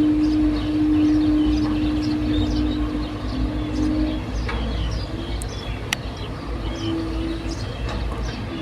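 Heavy machinery engine running steadily at a worksite, a low rumble with a steady hum that shifts in pitch about halfway through, while birds chirp throughout.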